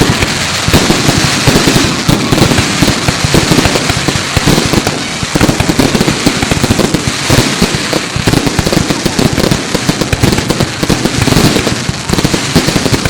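Fireworks display going off in a dense, unbroken run of bangs and crackling.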